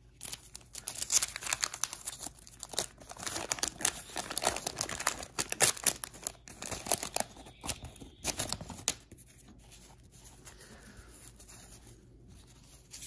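Wax-paper wrapper of a 1985 Topps football pack being torn open and crinkled by hand: a dense run of tearing and crinkling that dies down about nine seconds in to faint handling.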